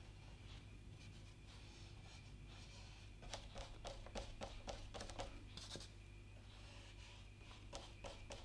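Faint strokes of a paintbrush on paper, a quick run of light scratchy dabs about three to six seconds in and a few more near the end, over a low steady hum.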